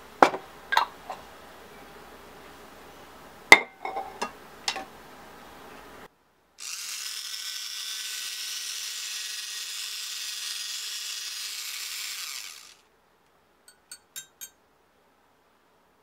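Glass clinks and knocks for the first few seconds. Then a handheld battery milk frother whirs steadily in a glass mug of milky coffee for about six seconds, stopping abruptly, and a few faint clicks follow.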